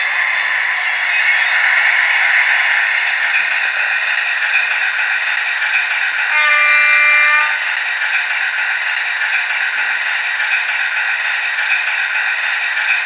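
Hornby Class 60 model locomotive's DCC sound decoder playing a diesel engine running through the model's small speaker, thin and mid-heavy, with a faint high whine in the first second or so. About six seconds in the decoder sounds one horn blast lasting about a second and a half.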